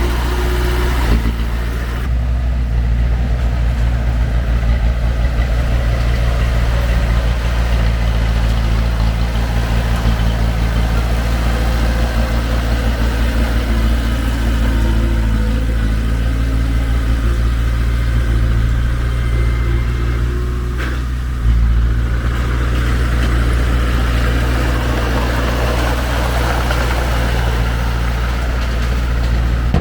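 Heavy diesel engine of earthmoving machinery running steadily at a low, even drone. About two-thirds of the way through there is a single sharp knock, and the engine is a little louder after it.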